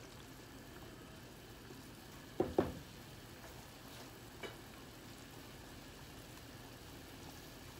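Pan of chicken noodle soup bubbling steadily at a boil, stirred with a wooden spatula at first. Two quick knocks come about two and a half seconds in, and a fainter click about two seconds later.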